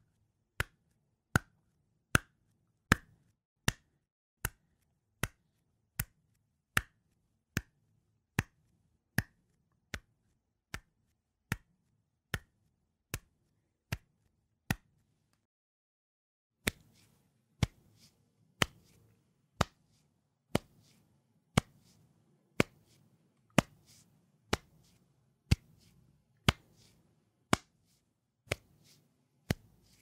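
Barefoot footsteps walking at an even pace, about one and a quarter sharp steps a second. After a short pause about fifteen seconds in, a second run of slightly slower steps follows over a faint steady hiss.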